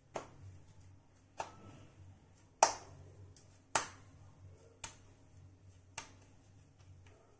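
Hands slapping a ball of kneaded wheat dough between the palms: six sharp pats at an even pace, about one a second, the third the loudest.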